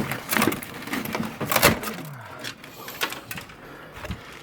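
A crowbar prying a motherboard out of a computer case: a run of sharp cracks and clanks as the circuit board breaks away, the loudest about a second and a half in, then quieter scraping and handling.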